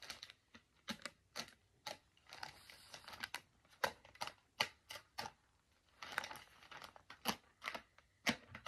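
Plastic courier mailer bag being cut open along its top with a small hand tool: a string of sharp, irregular snips and clicks with crinkling plastic in between.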